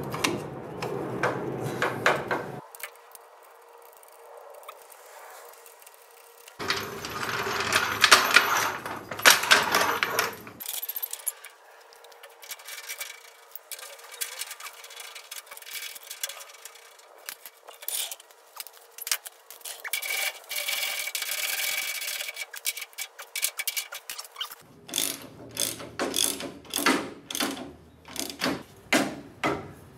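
Hand-tool work on a car chassis's rear axle and suspension: metal scraping, clinking and rubbing in short bursts. Near the end, a wrench is worked in quick regular strokes, about two a second.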